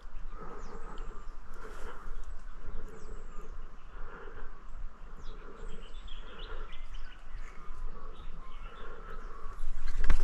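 Small birds chirping over a low wind rumble, with a sudden loud sound right at the end.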